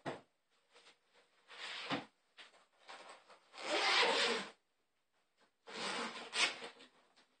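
A black fabric ukulele bag being handled on a wooden table: several short bursts of rustling and rubbing, the longest and loudest about four seconds in.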